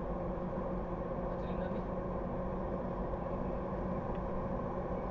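Steady driving noise of a car on the road: engine hum and tyre noise at an even level, with no sudden events.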